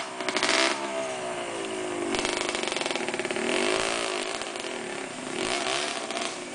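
Dirt bike engines revving, the pitch rising and falling several times.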